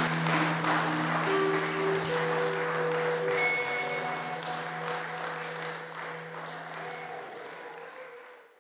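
Audience applause over closing music made of long held notes. Both fade away steadily, ending in near silence at the very end.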